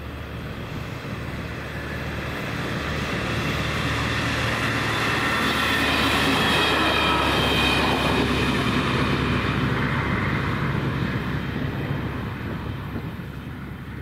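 Passenger train passing over a level crossing: its running noise builds, peaks about halfway through and fades away, with a whining note that drops in pitch as it goes by.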